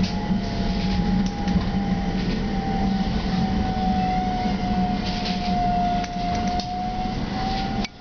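CAF Urbos A35 tram in motion, heard inside the passenger car: a steady rumble of the running gear under a thin electric drive whine that dips slightly in pitch and climbs again near the end, with a few light rattles. The sound drops out briefly just before the end.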